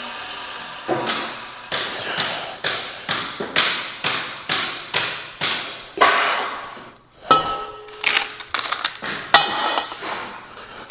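A run of sharp knocks, about two a second for several seconds, followed by a few irregular clanks and clicks.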